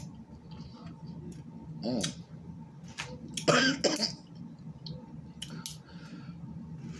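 Someone eating snow crab legs: scattered small clicks and cracks of shell, with a short cough-like vocal sound about three and a half seconds in and a softer throaty one about two seconds in.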